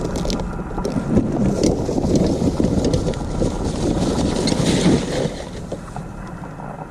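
A loaded hand trolley rattling and squeaking as it is pulled over rough field ground, mixed with wind rumbling on the microphone; it eases off about five seconds in.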